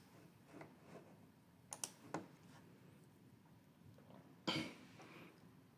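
A few faint computer mouse clicks about two seconds in, then a single short cough about four and a half seconds in, over low room hiss.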